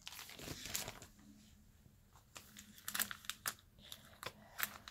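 Plastic binder sleeves crinkling as trading cards are slid into their pockets: faint rustling with several sharp snaps of the plastic, about a second in and three more in the second half.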